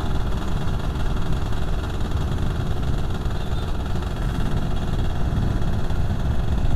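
Suzuki FIZ R's 110cc two-stroke single-cylinder engine running steadily at low revs while riding slowly.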